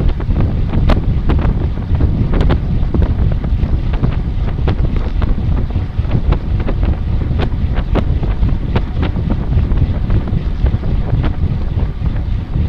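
Wind buffeting the microphone: a loud, steady low rumble with frequent scattered clicks.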